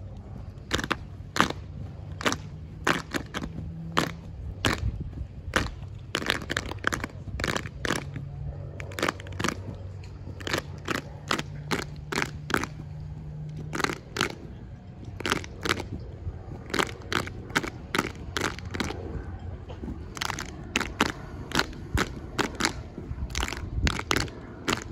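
Sharp hand slaps, claps and heel stomps of an unarmed exhibition drill team, coming in quick irregular runs and clusters.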